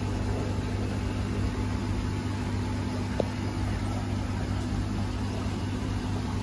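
Steady low mechanical hum from running machinery, even in level throughout, with one faint tick about three seconds in.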